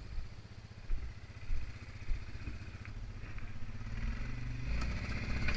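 ATV engine running at low speed with a few bumps early on. Near the end it revs up louder, as the quad climbs the loading ramps into a pickup bed.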